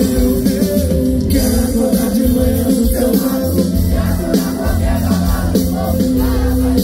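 Loud live band music with a man singing into a microphone over electric guitar, drums and heavy bass.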